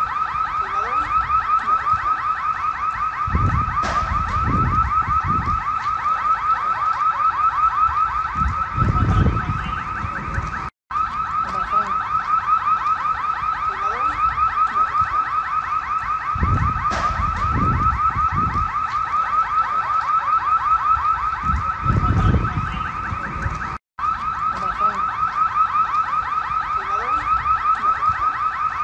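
Car alarm sounding: a loud electronic tone pulsing rapidly and without letup, cutting out briefly twice.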